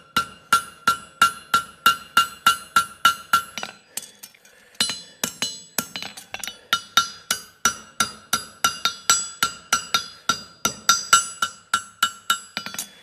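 Hand hammer striking a steel horseshoe on an anvil, about three blows a second with a clear ring on each, shaping the shoe after a jar calk is folded from the heel. The blows pause briefly a little over three seconds in, then carry on at the same pace.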